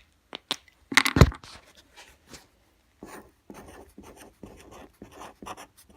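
Handwriting: a series of short, quick scratchy strokes of a writing tool across a surface as a name is written out, with a louder rustle and knock about a second in.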